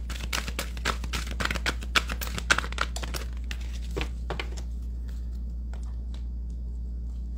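Oracle cards shuffled by hand: a quick run of rustling card flicks and slaps for about four seconds, then a card laid on the table and the rustling stops. A steady low hum sits underneath.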